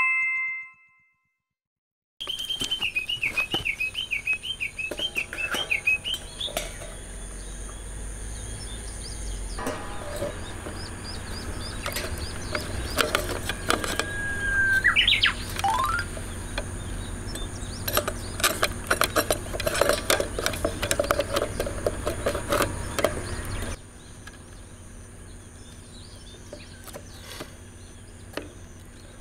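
A brief chime, then outdoor ambience: a bird sings a repeated warbling trill and later gives a call that swoops up and then down. Scattered clicks and knocks come from handling the wooden legs and steel rods of a homemade camp-table extension, most of them in the middle of the stretch. Near the end it all drops to a quieter background.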